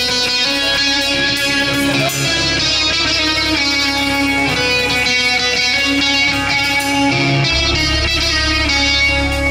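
Band music with guitar to the fore, an instrumental passage without singing; the low bass grows stronger about three-quarters of the way through.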